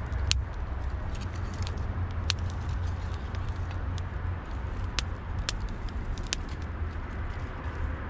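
Wood fire burning in a metal fire bowl, the logs giving several sharp crackles and pops at irregular intervals over a steady low rumble.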